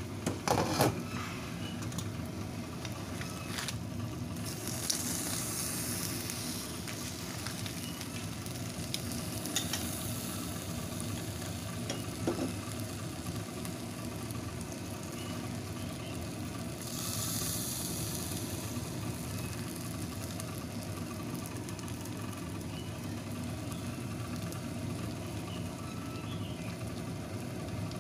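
Chicken fillets sizzling on baking paper in a covered wok over a low flame, a steady frying hiss that swells twice. A few sharp clatters in the first second as the lid comes off and the pieces are turned.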